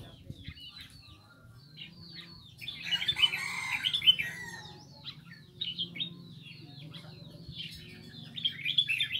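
Small caged songbirds chirping: many short, quick falling chirps, with a busy, louder flurry about three seconds in and another near the end, over a faint steady low hum.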